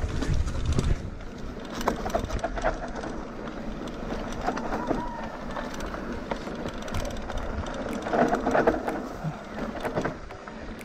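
Rurok Kanlaon enduro mountain bike riding down a dirt trail: tyre noise with scattered knocks and rattles over bumps, and wind rumbling on the microphone in the first second.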